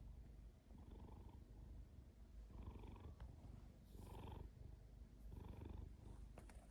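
Domestic cat purring close up, a steady low rumble that swells and eases with each breath about every second and a half.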